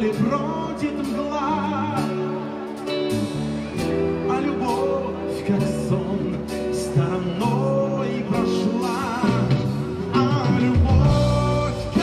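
Live pop-rock band playing through a concert sound system: singing, electric guitar, bass and drums.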